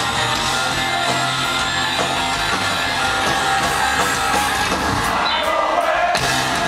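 Live heavy rock band playing loud, with distorted electric guitars, drums and a singer, heard from within the crowd.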